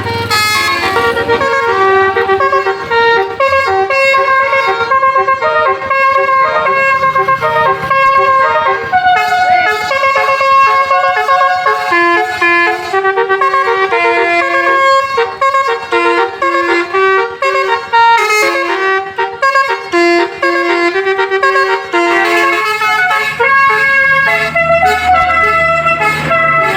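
A bus's telolet basuri horn, a set of multi-tone air-horn trumpets, plays a quick tune. Its notes step up and down, several sounding at once, without a break.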